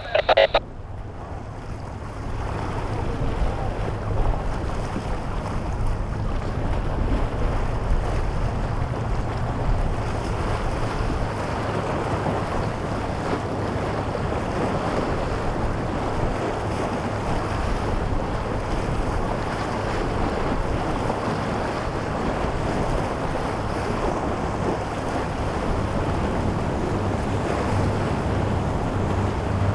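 Wind buffeting the microphone over choppy surf and the rumble of boats in an ocean inlet, with a deeper engine rumble growing louder over the last few seconds.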